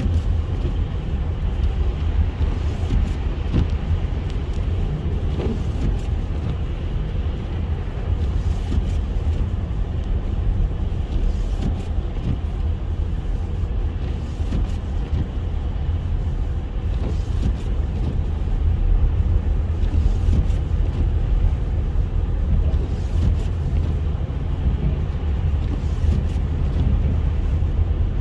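Car driving on a snowy highway: steady, low rumble of road and engine noise heard from inside the cabin.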